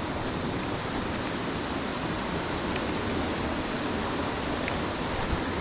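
Steady rush of whitewater rapids, fast water forced between big boulders in a rain-swollen beck.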